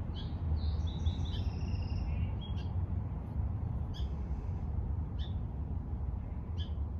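Songbirds singing outdoors: a quick run of chirping notes in the first couple of seconds, then a few short chirps spaced through the rest, over a steady low rumble.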